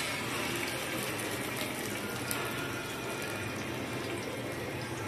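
Masala-marinated black pomfret pieces frying in hot oil in a steel kadai: a steady sizzle with fine crackles of spitting oil.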